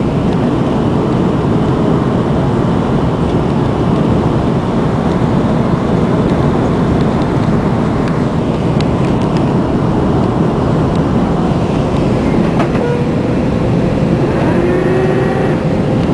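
Cabin noise of an Airbus A330-223 on final approach: a steady, loud rush of airflow and its Pratt & Whitney PW4168 turbofan engines, heard from a window seat over the wing. About three-quarters of the way in a click is followed by a steady hum, and a short rising whine comes near the end.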